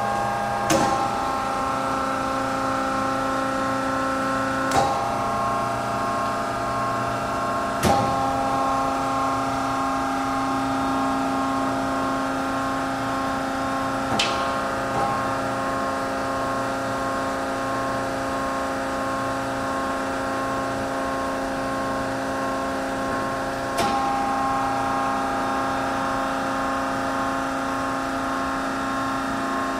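Hyd-Mech S-25A hydraulic horizontal band saw running: a steady electric motor and hydraulic pump hum with several even tones. Sharp clicks and clunks come a few times as the console controls are worked and the saw head is raised, and the hum shifts slightly at some of them.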